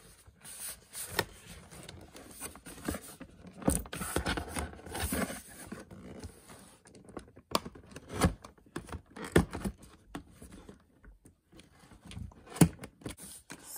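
Hands handling a toy cash register's cardboard box and plastic packaging: irregular scrapes, taps and knocks, with one sharper knock near the end.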